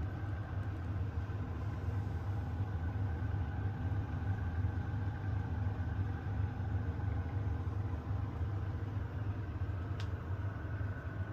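A steady low rumble with no change in level, and one short faint click about ten seconds in.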